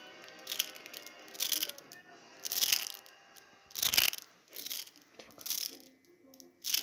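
A series of short crunching noises, about seven separate crunches spread out over several seconds, with faint background music in the first half.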